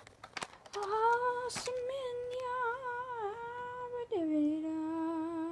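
A person humming a wavering tune, then dropping to a lower note about four seconds in and holding it steadily, after a few faint clicks at the start.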